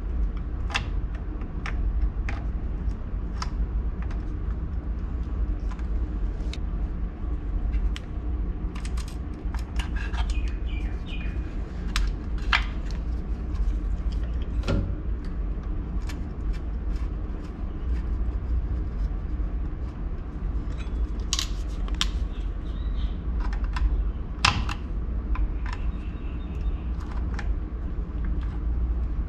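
Scattered small metal clicks and taps of pliers and a screwdriver working the wire terminals in a pump motor's terminal box, over a steady low rumble. A few brief bird chirps now and then.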